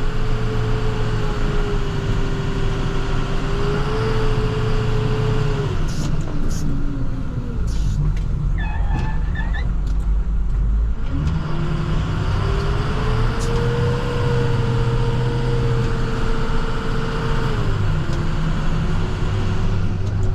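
Cab interior of an International TerraStar plow truck underway: the engine runs steadily with a whine that sinks about six seconds in, lugs low for a few seconds, then climbs back as the truck picks up speed.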